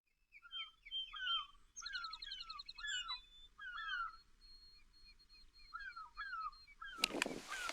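Several wild birds singing and chirping, with many short notes that slide downward and a fast trill about two seconds in. A burst of rustling with a few clicks comes near the end.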